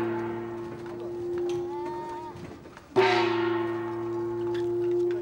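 A horn held on one steady note. It stops about two and a half seconds in, then is blown again on the same note with a sharp start a moment later.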